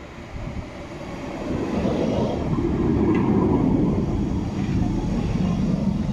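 Tram running past on its rails, growing louder over the first couple of seconds, staying loud through the middle and beginning to fade near the end.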